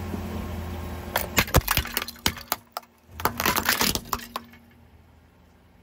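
Ceramic bowl cracking and shattering under a car tyre: a run of sharp cracks, a short pause, then a dense burst of crunching and clinking shards. The car's low engine hum runs underneath and drops away about four and a half seconds in.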